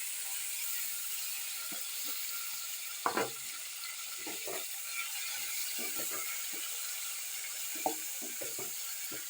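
Onions, tomatoes and green pepper frying in a pan, a steady sizzle with a spoon stirring and knocking against the pot now and then, loudest about three seconds in and again near the end.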